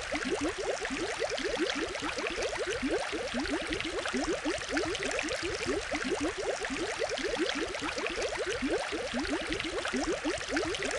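Aquarium water bubbling steadily: a continuous stream of bubbles heard as many quick, rising blips over a soft hiss.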